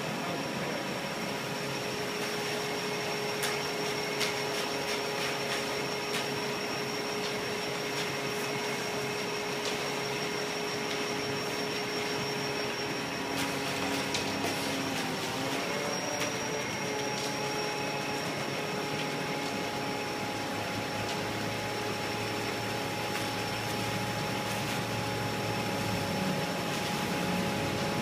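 Steady machine drone with a constant high whine, from equipment running on a concrete pour; its pitch shifts about halfway through. Light clicks and scrapes over it.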